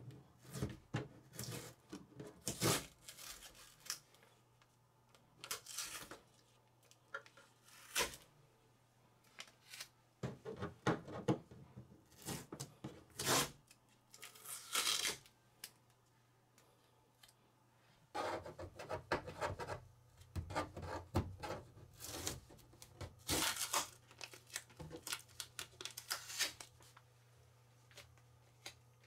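Adhesive transport tape being peeled off a 3D printer's side panel: repeated short ripping tears with pauses between them.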